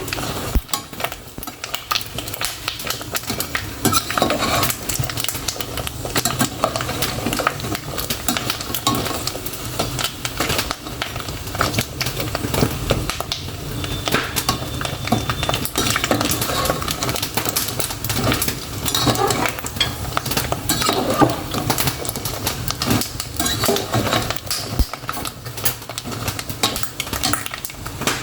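Pork rinds (torresmo, puffing into pururuca) frying in hot fat, with a dense, continuous crackling and popping.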